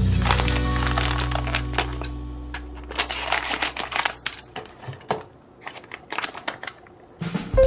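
Background music fading out over the first two seconds, then a run of irregular sharp clicks and crackles, like small objects being handled or crushed close to the microphone.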